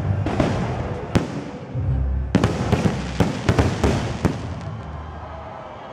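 Fireworks display: aerial shells bursting with sharp bangs, one about a second in, then a quick run of about eight bangs between two and four and a half seconds in, after which the sound dies away.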